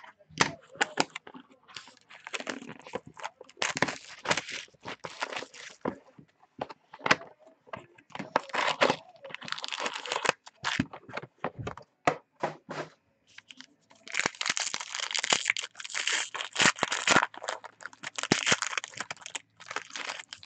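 Plastic wrap and cardboard crackling as a trading-card box is unwrapped and opened, then a foil card pack crinkling and tearing open. The crinkling is densest and loudest over the last six seconds or so.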